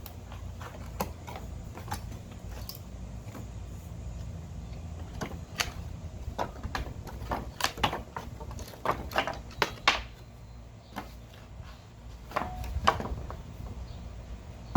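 Pallet boards being pried off with a homemade steel pallet buster bar: irregular sharp cracks and knocks of wood and nails giving way, thickest in the middle, with a brief squeak near the end.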